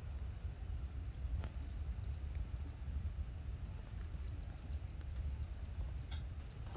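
Outdoor ambience: a steady low rumble with faint, scattered high chirps of small birds, and a single light click about a second and a half in.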